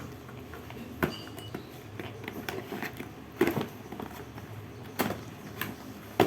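Handling noise from a small rechargeable electric fan and its packaging: scattered plastic clicks, taps and rustles, with louder knocks about a second in, midway and near the end.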